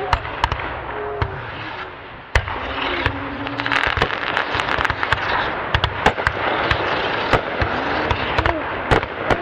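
Aerial fireworks going off: a dense crackling hiss of bursting stars, cut by many sharp bangs and pops. There is a loud bang about two seconds in.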